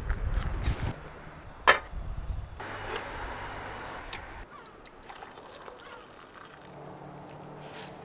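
Low wind rumble on the microphone at first, then a portable gas camping stove being worked: one sharp click about two seconds in, followed by a short spell of gas hissing.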